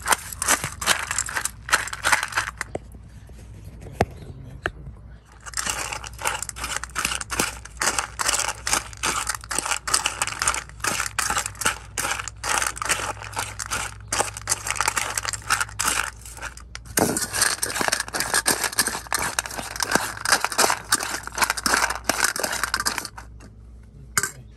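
Dry kibble and boiled ground beef being stirred in a stainless steel bowl with a plastic spatula: dense scraping, crunching and rattling of kibble against the metal, pausing for a few seconds about two and a half seconds in and again near the end.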